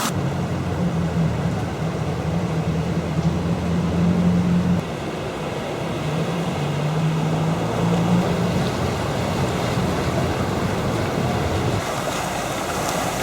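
A motor running with a steady low hum over the hiss of falling rain; the hum eases about five seconds in and dies away near the end.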